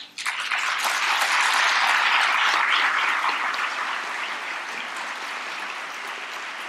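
A large audience applauding, starting suddenly, loudest after about two seconds, then slowly dying down.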